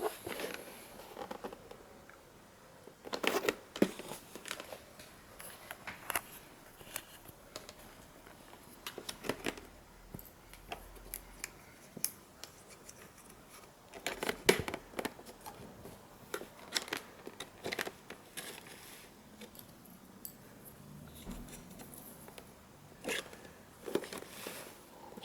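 Hand work on a car instrument cluster: scattered clicks, taps and light scraping of plastic parts and tools, with the loudest knocks about three seconds in, midway and near the end.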